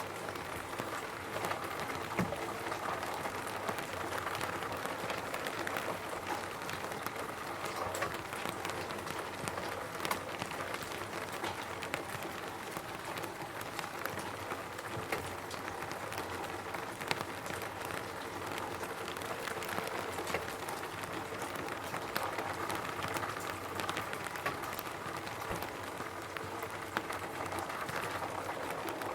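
Steady rain on a roof: an even patter of drops with scattered sharper ticks of single drops striking.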